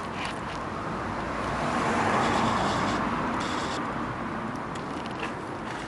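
A vehicle passing by: a rushing noise that swells to a peak about two seconds in and then slowly fades.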